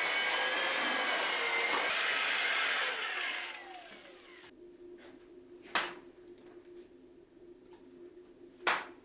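An electric power tool's motor running steadily, then winding down about three and a half seconds in. A faint hum and two sharp knocks follow, about three seconds apart.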